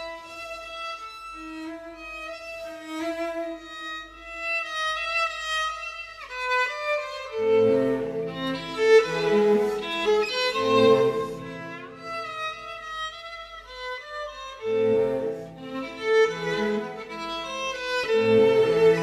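Instrumental background music. A melody plays on its own at first; lower accompanying notes come in about halfway through, drop out briefly, then return near the end.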